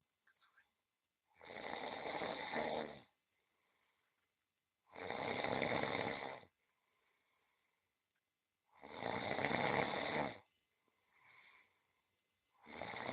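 A domestic cat snoring in deep sleep: long, even snores, each about a second and a half, repeating roughly every three and a half to four seconds, with a fourth one starting near the end.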